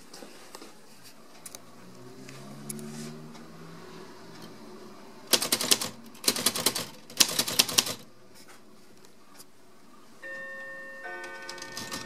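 Rocher-Rooy typewriter being typed on: three quick runs of key strikes and typebar clacks about five to eight seconds in, after a few scattered clicks.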